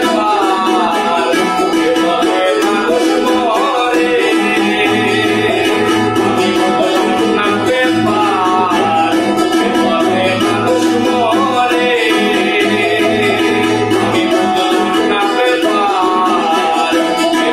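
A man singing a Bengali song, accompanied by strummed acoustic guitar and ukulele.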